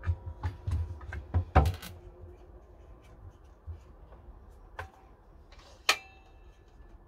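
Wooden blocks and a cordless circular saw being handled on a timber bench, with the saw not running: a quick run of knocks and clatters in the first two seconds, then a few scattered taps, the sharpest a click with a brief ring near the end.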